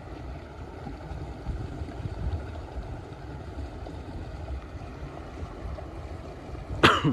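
Uneven low rumble of wind buffeting a handheld microphone outdoors, with a few soft bumps. A short, loud voice exclamation cuts in near the end.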